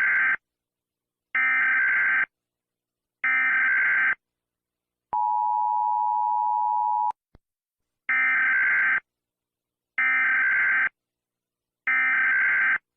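Emergency Alert System SAME header tones: three screechy data bursts of about a second each, then a steady attention tone for about two seconds. After a brief click, three more identical header bursts follow.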